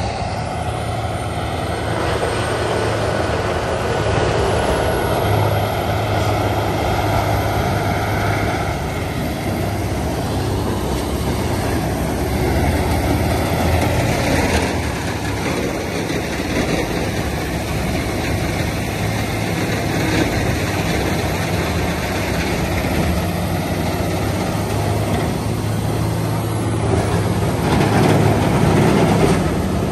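Peterson 710P horizontal grinder running under load, its Cat diesel engine going steadily while it chews up brush and throws out mulch. The sound gets a little louder near the end.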